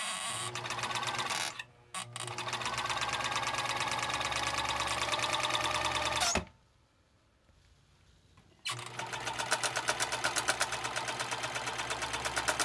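Bernina Record 830 electronic sewing machine running with its head cover open, its motor humming under the rapid clatter of the needle-bar mechanism. It runs in three bursts: a short one, a longer one of about four seconds after a brief stop, and after a pause of about two seconds a third run in which the separate stitch strokes stand out.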